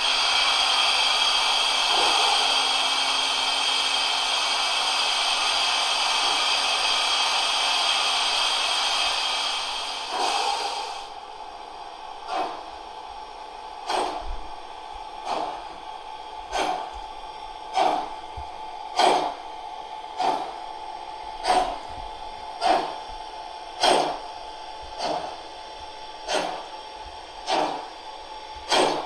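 Sound system of a 1:32 brass model of a class 64 tank steam locomotive with an ESU LokSound 5 XL decoder: a steady hiss of cylinder steam for about ten seconds, then slow, even exhaust chuffs, about one every 1.2 seconds, as the locomotive moves off.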